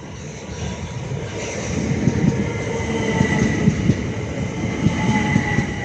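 Southeastern Class 375 Electrostar electric multiple unit moving through the station. Its wheels rumble and knock on the rails, growing louder over the first two seconds, under a high traction whine that falls slowly in pitch.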